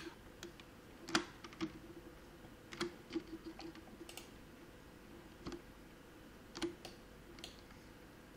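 About a dozen faint, sharp clicks of a computer mouse and keyboard, spaced irregularly and thinning out toward the end.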